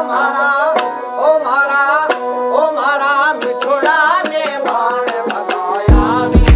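Background music: a wavering melody over sharp percussion strikes, with a heavy bass beat coming in near the end.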